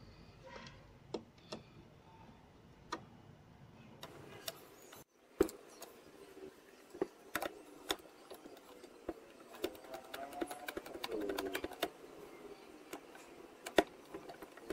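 Scattered light clicks and knocks of a screw and screwdriver being handled against a speaker baffle, with two sharper knocks. About two-thirds through comes a squeaky scraping lasting about two seconds as a screw is driven in to cut a thread into a freshly made hole.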